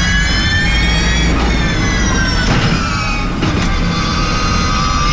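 Electric race car's drivetrain whining, heard from inside the cockpit: a high multi-pitched whine that rises as the car accelerates, falls as it slows about halfway through, and climbs again near the end, over steady tyre and road rumble.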